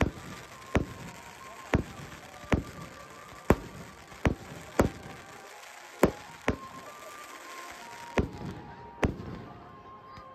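Aerial firework shells bursting overhead: about a dozen sharp bangs, unevenly spaced at roughly one a second.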